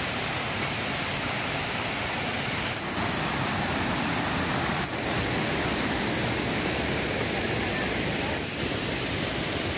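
Steady rushing of a waterfall and the river cascading over a stone weir below it.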